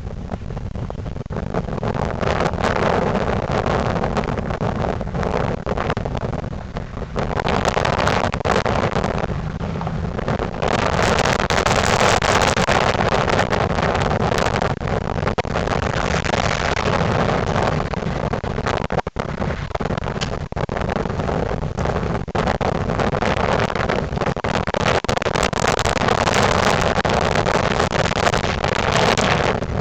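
1998 Ford Crown Victoria Police Interceptor's V8 running with an exhaust leak, its exhaust noise swelling and easing several times as the car is driven, with some wind on the microphone.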